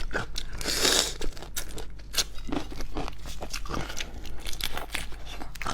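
Close-up eating sounds of raw black tiger shrimp being bitten and chewed: repeated crunches and wet clicks, with a longer crackle about a second in.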